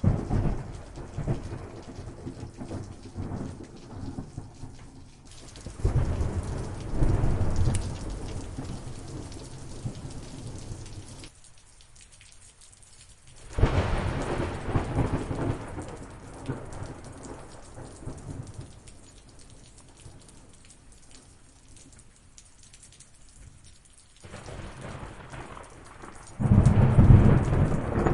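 Thunderstorm: steady rain with repeated rolls of thunder. A sharp clap opens it, long rumbles swell up about five and thirteen seconds in, and the loudest peal comes near the end.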